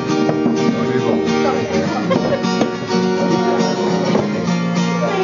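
Acoustic guitar played live, a steady run of plucked notes and chords ringing over held low bass notes.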